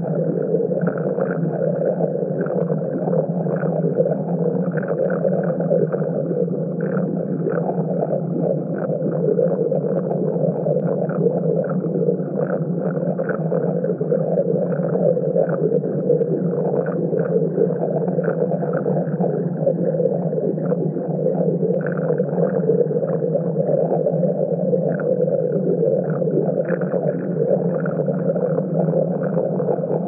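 Synthesized space-ambience drone: a dense, steady low hum overlaid with quick, faint flickers higher up, unchanging throughout. The uploader says it comes from a random coincidence of numbers.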